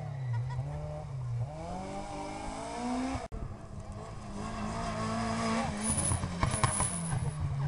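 Small hatchback rally cars passing at speed, engines revving hard and climbing in pitch as they accelerate. An abrupt cut about three seconds in switches to a second car, a Peugeot 206, revving up the same way.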